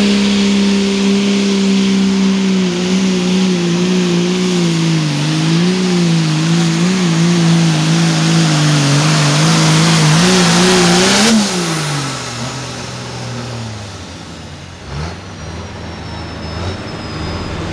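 Hot Farm pulling tractor's engine at full throttle down the track, its pitch wavering as it loads up against the weight-transfer sled. About eleven seconds in it blips up, then the throttle comes off and the engine winds down to a low rumble. A thump follows a few seconds later.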